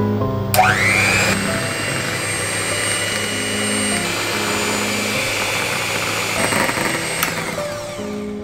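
Electric hand mixer switched on about half a second in, its motor spinning up with a rising whine and then running steadily as its twin beaters whip egg whites into meringue in a glass bowl; it winds down near the end. Soft background music plays under it.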